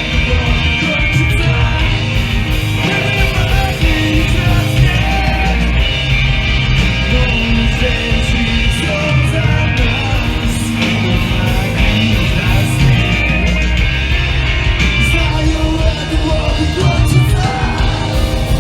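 Live emo/hardcore band playing loud, with distorted electric guitars, bass and drums and sung, partly shouted vocals.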